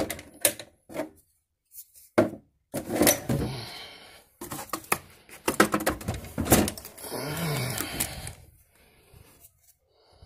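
Objects being rummaged through and moved about: scattered knocks, clatters and rustling.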